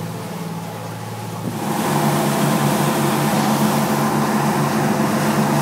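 Fishing boat's engine running steadily under way, with the rush of the churning wake. About a second and a half in, both grow louder and the rushing water noise comes up strongly.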